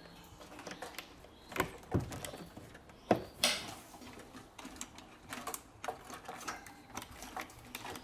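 A wooden bird-training box's door being pushed shut and its metal toggle latches fastened by hand: a run of clicks and knocks, the loudest about two and three seconds in, with lighter ticks between.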